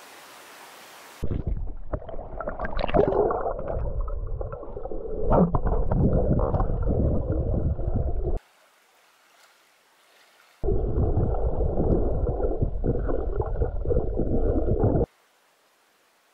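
Underwater water noise heard through a snorkeler's handheld camera: muffled low rushing and gurgling of water and bubbles as she swims. It comes in two stretches of several seconds, each stopping abruptly into near quiet.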